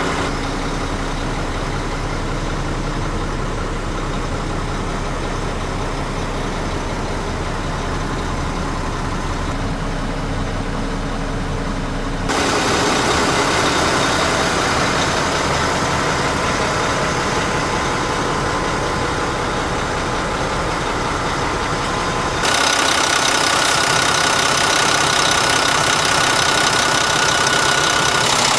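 Mack day cab tractor's diesel engine idling steadily. It is muffled inside the cab at first, steps up in loudness about twelve seconds in, and steps up again about twenty-two seconds in as it is heard near the open engine bay.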